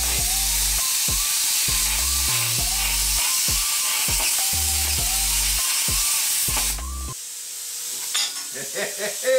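PLC 55 Pro air plasma cutter torch cutting steel plate with a steady hiss that stops about seven seconds in. Background music with a beat plays over it and cuts off at the same time.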